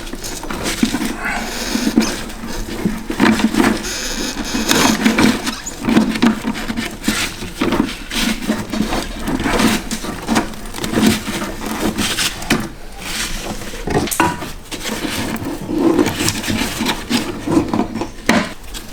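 A BMW E30's metal fuel filler neck being twisted and worked free of its rubber hoses and boot: irregular creaking and squeaking of rubber, with frequent knocks and scrapes of metal against the body.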